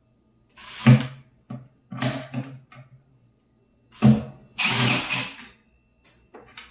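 Cordless drill/driver backing out the screws of a garbage disposal's electrical cover plate, in three short runs, the longest about a second and a half, a little past the middle.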